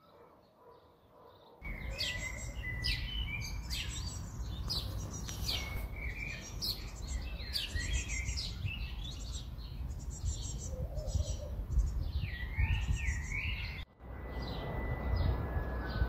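Many small birds chirping and trilling together over an uneven low rumble. This starts abruptly a couple of seconds in after a near-quiet stretch. Near the end it cuts off, and a different sound with a few steady high tones follows.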